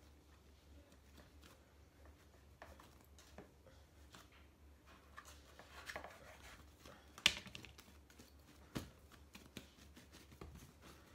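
Soft taps and clicks of a plastic dough scraper on a stone-like countertop as bread dough is cut and handled, with one sharper click a little after the middle and a smaller one soon after.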